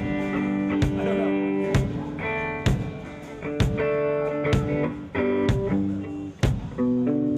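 Band soundcheck: an electric guitar plays ringing, sustained chords that change every second or so, with a drum struck about once a second.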